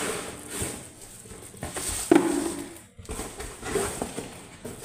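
Plastic bags rustling and crinkling as plastic-wrapped storage containers are pulled out of a cardboard parcel, with the box scraping and a knock a little over two seconds in.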